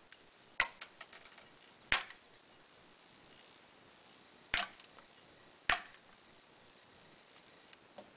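Nippers snipping 3 mm ABS plastic filament into short pieces: four sharp snips a second or more apart, with a few faint ticks between them.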